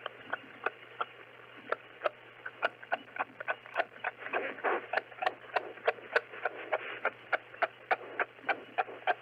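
Kangaroo clucking: a run of short, sharp clicks, sparse at first and coming faster, about four a second by the end.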